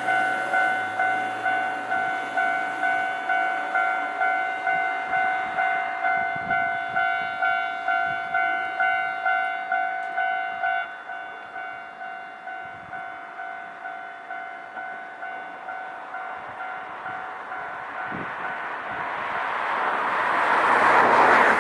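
Japanese level-crossing electronic warning bell ringing, about two dings a second; about 11 seconds in it drops to a quieter ring. Near the end a train approaches and passes, its rumble swelling to the loudest sound.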